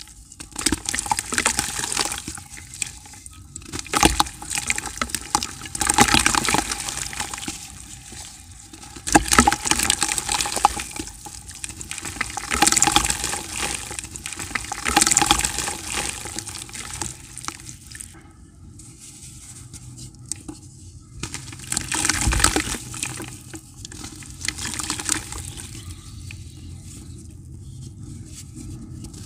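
Hands crumbling dry grey dirt blocks over a bucket of water: crunching and crackling as the blocks break, and pieces dropping and splashing into the water, in irregular bursts.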